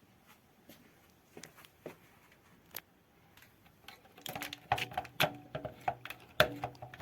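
Handling noise of a boxed toy train set: light clicks and taps of plastic and cardboard being handled, sparse at first and growing busier and louder about four seconds in.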